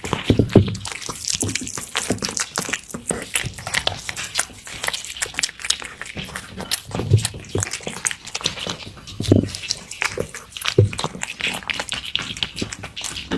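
A cat eating wet food: quick, irregular wet chewing and smacking clicks, with a few soft low thumps.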